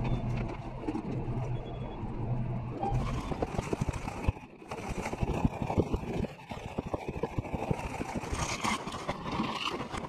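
Street traffic noise: a steady low hum for the first three seconds, then a run of rapid knocks and rattles.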